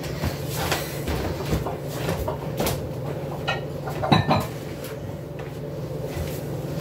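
Kitchen clatter of cookware and utensils being handled: scattered knocks and clinks, with a cluster of louder knocks about four seconds in, like a cupboard door or drawer bumping. A steady low hum runs underneath.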